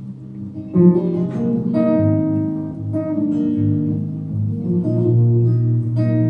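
Acoustic guitar played solo as an instrumental break in a folk song: a chord struck about a second in, then further picked and strummed chords ringing over a held low bass note.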